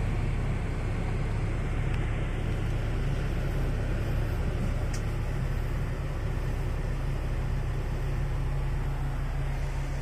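Land Rover Series III's 2.25-litre engine idling steadily, heard from inside the cab, under the even rush of the newly fitted air conditioner blowing through its under-dash vents.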